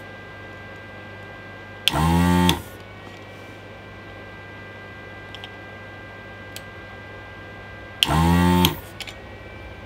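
Electric desoldering gun's built-in vacuum pump triggered twice, each time a short loud buzz of under a second, about six seconds apart, sucking molten solder out of a through-hole joint. A steady low hum with a faint high whine runs underneath.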